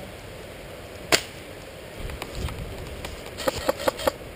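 Airsoft rifle shots: a single sharp crack a little past a second in, then a quick string of about five cracks near the end, with a brief low rumble of movement in between.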